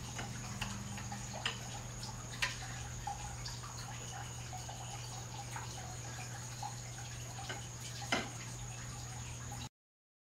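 A chef's knife slicing a cooked pork loin on a ceramic plate, with a few faint clicks as the blade and fork touch the plate, over a steady low hum. The sound cuts off suddenly near the end.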